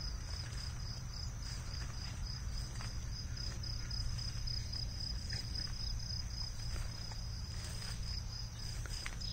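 An insect chirping steadily in an even high-pitched pulse, about five pulses a second, over a low steady rumble.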